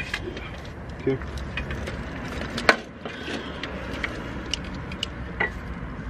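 Scattered metallic clicks and knocks as a clutch pressure plate is handled against the flywheel and lined up on its locating pegs; one sharp click about two and a half seconds in is the loudest.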